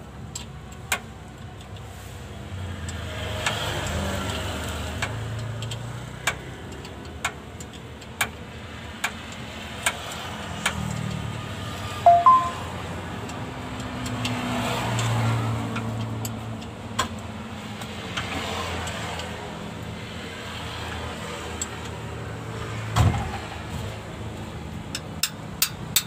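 Sharp, irregular metal clicks and clinks of hand tools on a clutch cylinder being fitted under a minibus, over a low vehicle rumble that swells and fades several times.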